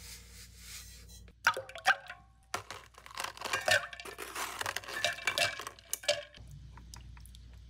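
Ice cubes being cracked out of a plastic ice tray and dropped into a metal cup of instant coffee, a run of clinks and clatters that eases off near the end.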